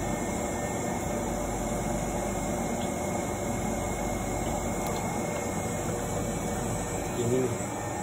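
Steady mechanical hum of a soft-serve ice cream machine running as Thai tea soft serve is dispensed into a cone, with a brief louder sound near the end.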